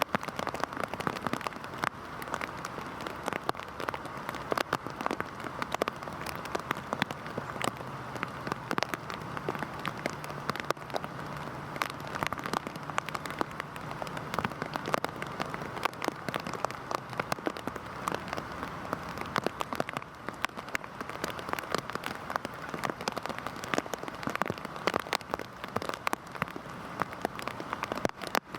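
Heavy rain falling steadily, with a dense scatter of individual drops striking close by.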